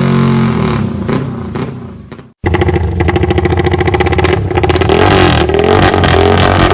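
Music fades out. After an abrupt cut, a modified Yamaha Y15ZR's single-cylinder engine, fitted with a Comstar dry clutch, runs at idle with a rapid even exhaust beat. From about halfway on it is blipped in a series of short revs.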